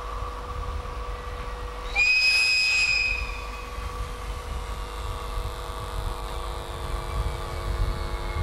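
A train whistle gives one high-pitched blast lasting about a second, about two seconds in. After it, the rumble of an electric train rolling slowly into the station builds over a steady background hum.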